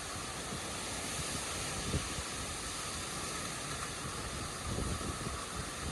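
Hurricane winds blowing hard as a steady rushing noise, with a faint low knock about two seconds in.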